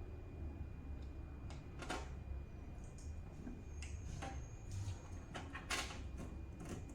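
Hands working on a desktop PC case and its parts: a handful of scattered sharp clicks and knocks, spaced irregularly, over a steady low hum.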